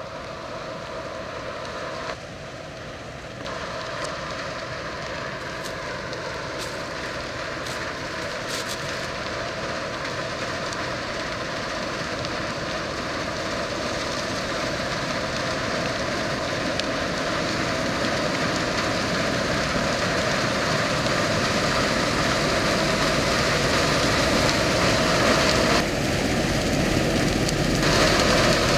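Combine harvester running under load while cutting and threshing sunflowers: a steady engine and machinery noise that grows gradually louder as the combine comes closer.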